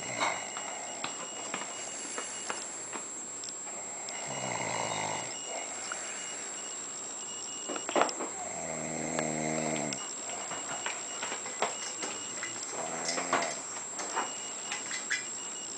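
Explosive snoring with uneven breaths: a breathy snore about four seconds in, then a longer rattling, pitched snore lasting over a second about eight and a half seconds in, and a shorter one around thirteen seconds. Small clicks come in between.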